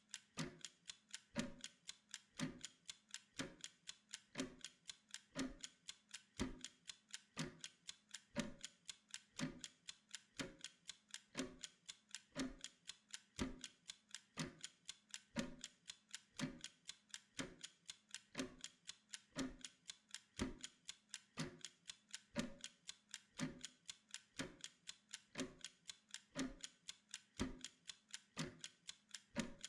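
Wind-up mechanical kitchen timer ticking steadily as it counts down: rapid, even ticks with a louder tick about once a second.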